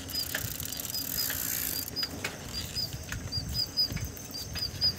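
Bicycle riding on a paved road: low tyre and wind rumble with scattered rattling clicks, over short high chirps that repeat two or three times a second.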